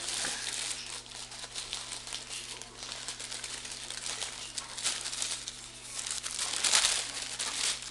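Paper packaging crinkling and rustling as a parcel is unpacked by hand, with louder stretches about five seconds in and near the end.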